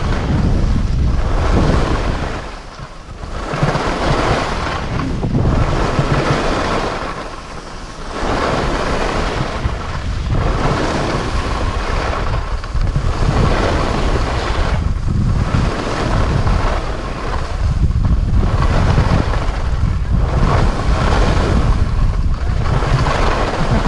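Wind buffeting an action camera's microphone while skiing downhill: a loud, gusting rush of noise that eases off briefly twice.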